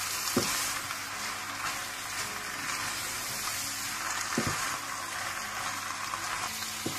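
Penne in a creamy sauce sizzling in a hot nonstick pan as it is stirred with a spatula, a steady hiss throughout. The spatula knocks dully against the pan three times: about half a second in, about four and a half seconds in, and near the end.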